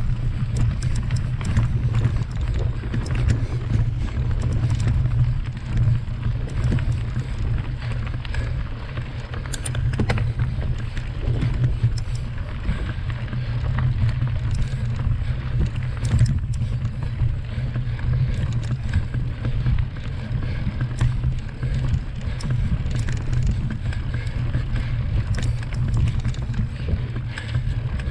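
Mountain bike ridden along a dirt trail: a steady low rumble of wind and motion buffeting the microphone, with scattered light clicks and rattles from the bike over rough ground.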